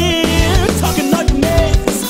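Band music: a drum kit beating a steady rhythm under bass notes and a melody line that bends in pitch.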